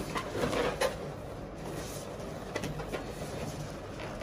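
Inflated latex balloons rubbing and squeaking against each other as they are pressed into a garland cluster, with a few light knocks, the loudest about a second in.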